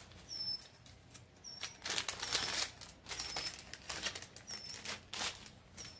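Clear plastic parts bag crinkling and rustling in the hands as a new circlip is taken out of it, in uneven spells with the loudest about two seconds in and again around four to five seconds in.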